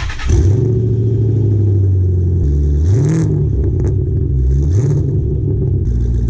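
A car engine running at a steady pitch, then revved up and back down three times, about two seconds apart.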